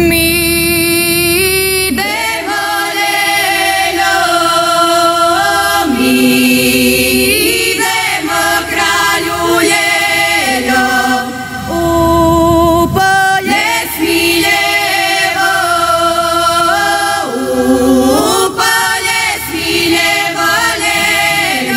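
Women's folk ensemble singing a traditional Slavonian kraljice (ljelje) song unaccompanied. A low tone is held steadily beneath higher voices that slide and waver between notes, in phrases of a few seconds.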